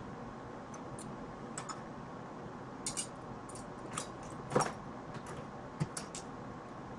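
Scattered light clicks and ticks of fingers handling a thin wire and a header pin, the loudest about four and a half seconds in, over a steady hiss.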